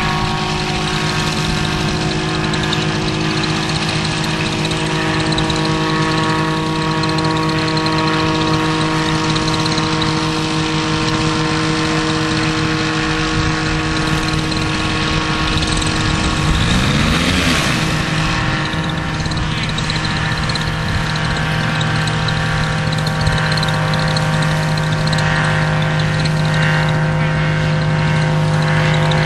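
Paramotor engine and propeller of a powered paraglider running steadily at takeoff power. About seventeen seconds in, it passes right overhead: the sound swells and its pitch bends up and then down as it goes by.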